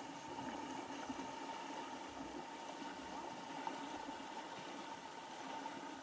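Fast-flowing river rushing steadily, with a steady hum underneath.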